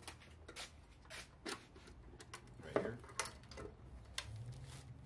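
Scattered light clicks and knocks of metal tools and parts being handled on a workbench, with one louder knock about three seconds in.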